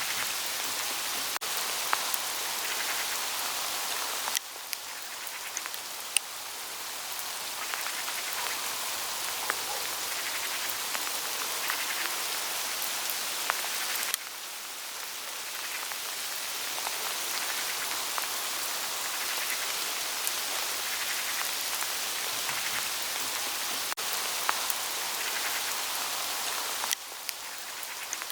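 Hail falling on autumn forest foliage: a steady dense patter on the leaves, dotted with sharp individual ticks. The level drops suddenly a few times and then slowly builds back up.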